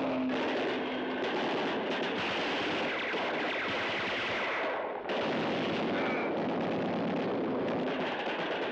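Rapid, dense gunfire, broken off briefly about five seconds in.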